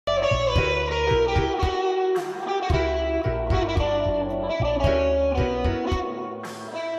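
Background music led by electric guitar over a steady bass beat, with a brief swishing sweep twice.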